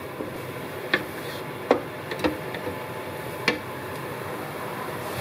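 Wooden spatula knocking against a nonstick frying pan, about five irregular clicks, while stirring diced onion and garlic, over a steady sizzle of frying. The knocks stop near the end and only the sizzle carries on.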